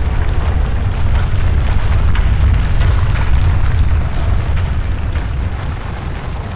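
A deep, continuous rumble with a crackling noise over it, easing slightly near the end.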